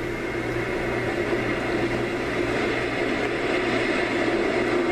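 Homedics SoundSpa clock radio playing its "ocean" nature sound through its speaker: a steady rushing noise with a faint low hum under it.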